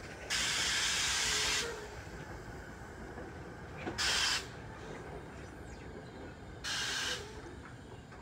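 Compressed air venting from a train in three sudden bursts of hiss: the first lasts about a second, and two shorter ones come about four and about six and a half seconds in.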